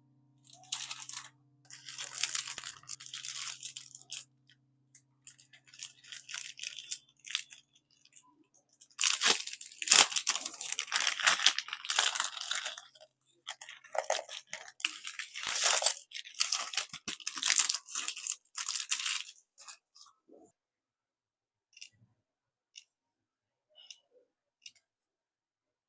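Crinkling and rustling handling noise in irregular bursts, loudest in the second half, then a few faint clicks near the end.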